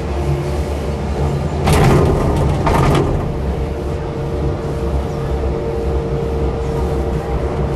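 Steady rumble of a Von Roll aerial gondola cabin riding along its cable, heard from inside the cabin, with two brief louder rushes of noise about two and three seconds in and a faint steady hum from about halfway.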